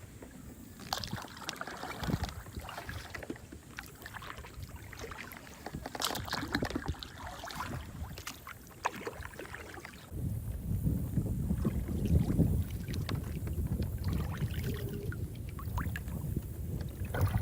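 Kayak paddle strokes: the blades dipping into the water and dripping in uneven splashes. About ten seconds in, wind starts buffeting the microphone with a low rumble.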